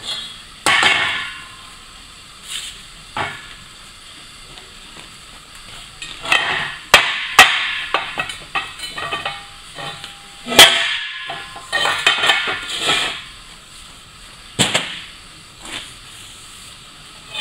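Hammer blows on a steel car wheel, striking at irregular intervals to knock off the outer rim where the wheel has been cut through, each blow ringing on the steel. Between the blows come lighter metal clanks of the loosened rim.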